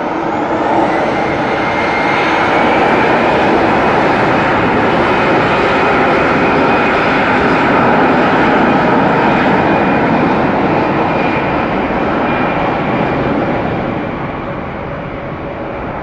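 Airbus A320's CFM56 turbofan engines spooling up to takeoff thrust for the takeoff roll. A whine rises over the first few seconds, then the engines run loud and steady, and the sound eases off near the end as the jet rolls away.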